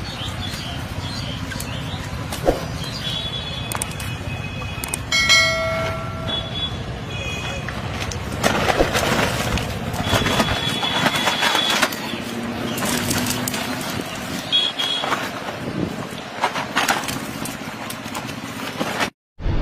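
Indistinct voices and the rustle and handling noise of fish being picked out of a fishing net, in irregular bursts. A short high-pitched tone sounds about five seconds in. The sound cuts out briefly just before the end.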